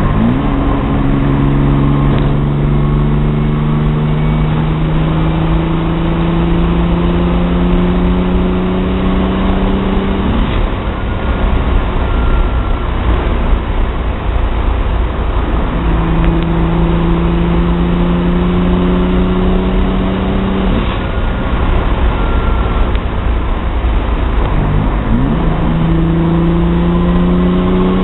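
Engine with advanced cam timing revving up in three long pulls. Its pitch climbs slowly over several seconds each time, then drops suddenly as the throttle comes off.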